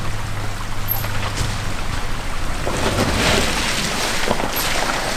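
Subaru Crosstrek fording a shallow rocky creek: a low steady engine hum, then from about two and a half seconds in the tyres splash and churn through the water.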